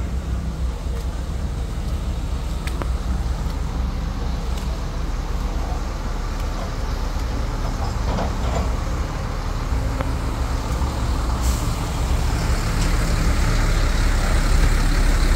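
Heavy diesel truck engine running steadily at close range, getting louder over the last few seconds.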